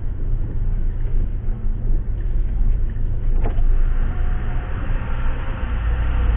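Ambulance engine and road rumble heard inside the cab, steady and low. A click about three and a half seconds in, after which a hiss of outside noise gets louder.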